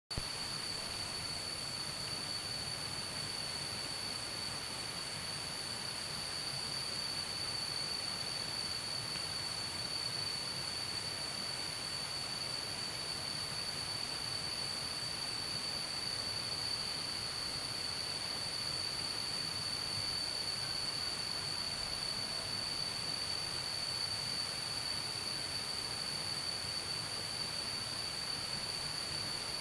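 Evening insect chorus: a steady, unbroken high-pitched trill with a fainter, higher shrill band above it.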